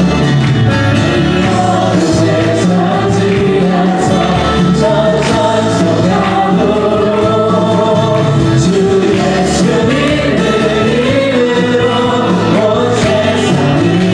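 Christian worship song: a group of voices singing together over instrumental accompaniment.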